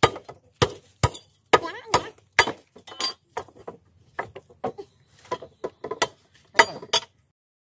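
Firewood being chopped: a run of sharp chops, roughly two a second at an uneven pace, stopping about seven seconds in.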